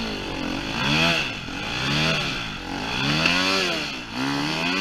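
KTM enduro dirt bike engine revved up and let fall again and again, about once a second, rising and falling in pitch: the bike is stuck and the rider is trying to power it up a steep slope.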